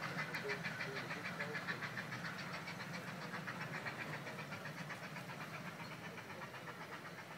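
Quarter-scale park train running off into the distance: a rapid, even clicking over a low steady rumble, slowly fading.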